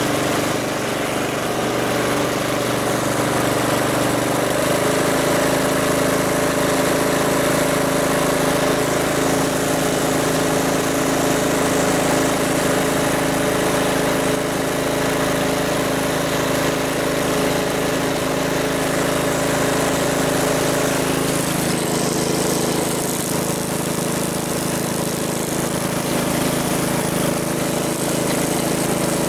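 1969 Chevrolet Malibu's engine running steadily, its note changing twice, about five seconds in and again about twenty-one seconds in.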